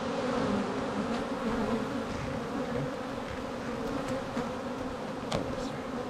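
Honey bees buzzing steadily in a dense swarm around an opened hive as a frame covered in bees is held up. The colony is an aggressive one, stirred up by the inspection.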